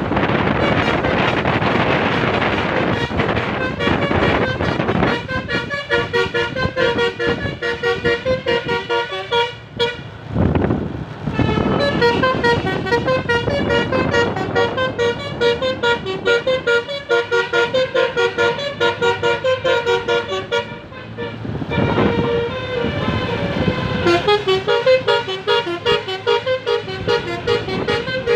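Road and wind noise, then from about five seconds in a telolet basuri multi-tone horn playing a quick tune of short, changing notes. It breaks off briefly twice.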